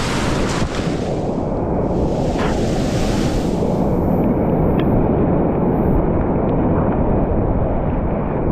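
Whitewater rapid rushing loudly around the boat, a dense, steady wash of water noise on the microphone. From about four seconds in the high end drops away and the sound turns muffled.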